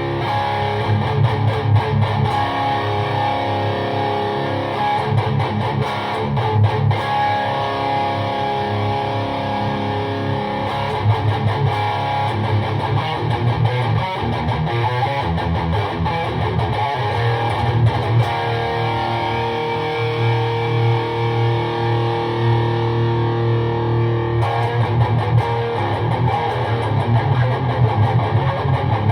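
Jackson DKM2 electric guitar with Seymour Duncan JB pickups played through a PRS MT-15 V2 amp head into an ENGL 1x12 cabinet with a Celestion Vintage 30 speaker, heard as room sound. It plays amplified rock chords and riffs, with held chords ringing between faster passages.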